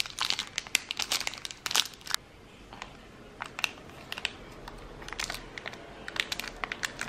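Plastic snack-bar wrapper crinkling and crackling as it is handled and peeled back from an oat bar. The crackles come in irregular bursts, busiest in the first two seconds, with shorter clusters later on.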